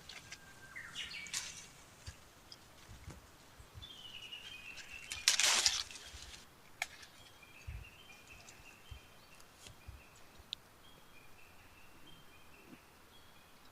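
Small birds chirping in a run of short, repeated high notes, with a brief loud burst of noise about five seconds in.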